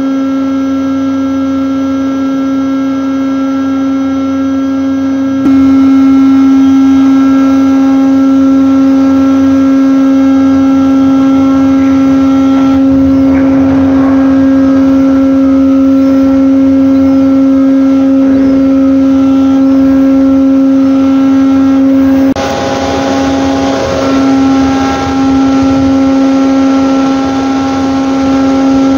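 Hydraulic mooring winch on a ship's bow running with a loud, steady hum of fixed pitch. It gets louder about five seconds in and changes again twice, wavering near the end, as the drum heaves in rope.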